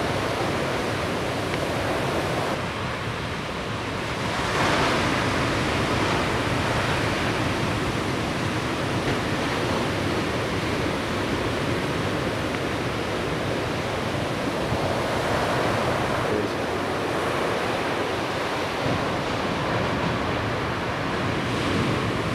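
Ocean surf breaking and washing in a steady rush of noise, swelling louder about four and a half seconds in.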